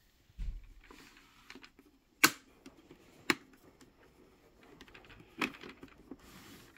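Faint rustling handling noise with a low bump about half a second in, then three sharp clicks spread over the next few seconds, the first the loudest.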